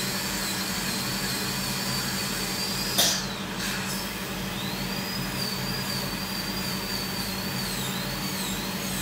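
High-speed dental drill whining as it cuts tooth, its high pitch wavering with the load, over a steady hum and hiss. About three seconds in there is a short burst of air hiss and the whine stops, then it spins up again a second or so later.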